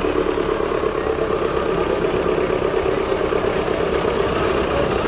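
Diesel tractor engines idling steadily with a rough, even rumble while two tractors are lined up and hitched for a tug of war.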